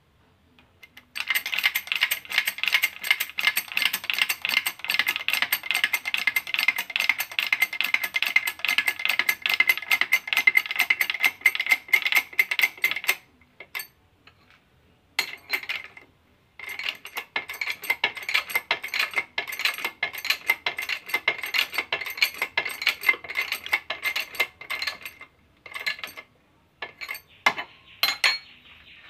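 Rapid metallic clicking as a workshop press is worked to press a tie rod end. It comes in two long runs of about twelve and eight seconds, a short pause between them, then a few separate clicks near the end.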